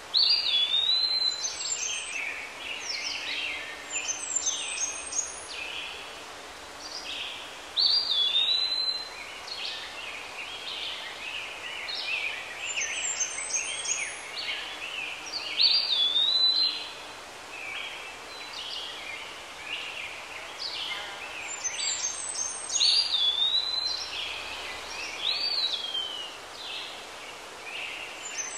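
Songbirds singing: phrases of quick chirps and swooping whistled notes every few seconds, over a steady faint hiss.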